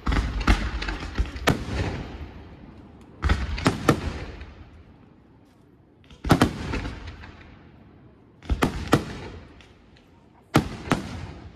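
Aerial fireworks bursting in volleys: five clusters of several sharp bangs, coming every two to three seconds, each cluster trailing off in an echo that dies away before the next.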